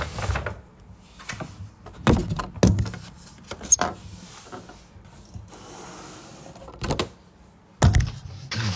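Handling noise: several sharp knocks and thumps with some rubbing, as a phone and a foam takeout container are moved about on a wooden table.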